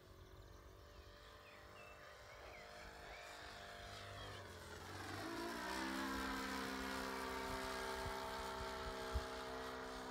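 Model aircraft's ASP 61 FS four-stroke engine, converted to run on petrol, running in flight with a three-blade propeller: a steady buzzing note. It grows louder a few seconds in as the plane comes closer, then holds steady.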